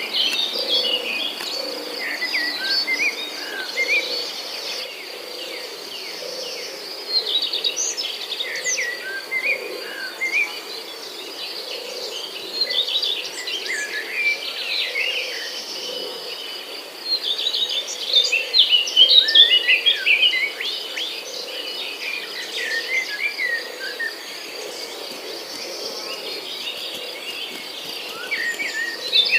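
Chorus of songbirds chirping and calling in quick, overlapping phrases, over a steady high insect trill.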